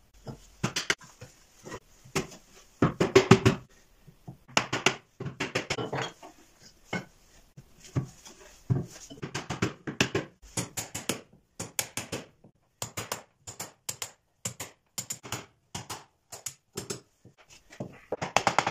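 A small hammer knocking on wood as box joints are tapped together: quick runs of several blows early on, then single knocks at a steady pace through the second half.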